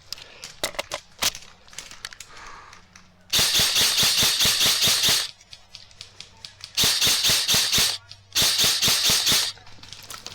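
Airsoft gun firing full-auto in three bursts of rapid, evenly spaced shots: a long burst of about two seconds, then two shorter bursts of about a second each. A few scattered single clicks come before them.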